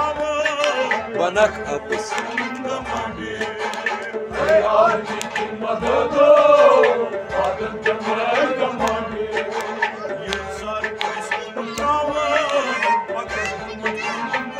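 Kashmiri Sufi music: a male voice sings a drawn-out, ornamented line over a harmonium, with plucked strings and a low drum beat about once a second.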